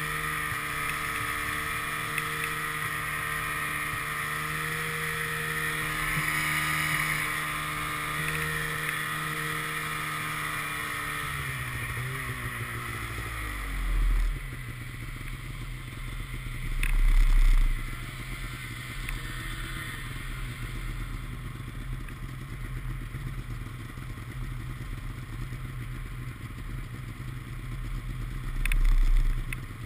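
Snowmobile engine running steadily under way, then dropping in pitch about twelve seconds in as the throttle is let off, and settling to a lower idle. A few brief low rumbles rise above the idle later on.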